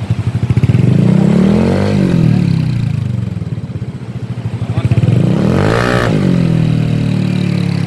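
Small motorcycle with an aftermarket exhaust idling, then revved up and back down twice, the second rev higher.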